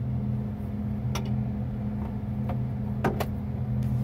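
Mobile crane's engine running, a steady low hum heard inside the operator's cab. A few sharp clicks or knocks come through it, about a second in and twice in quick succession near three seconds.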